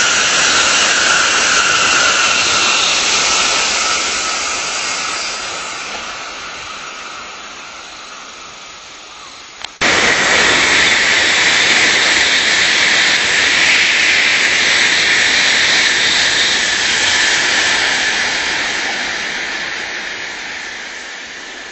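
Tokaido Shinkansen bullet train passing at speed: a loud rushing hiss that slowly fades as it draws away. About ten seconds in, the sound cuts abruptly to another loud rush of a passing train, which also fades away.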